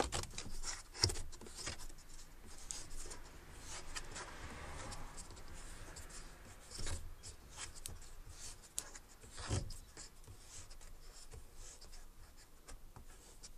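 Plastic roof vent being wound open by its hand crank: scattered clicks and plastic rubbing and scraping from the winding mechanism, with a longer scrape about four seconds in.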